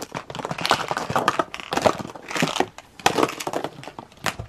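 Close-miked crackling, clicking and crinkling of plastic mystery-toy capsules and their wrapping being handled and opened, in a rapid, uneven run of snaps.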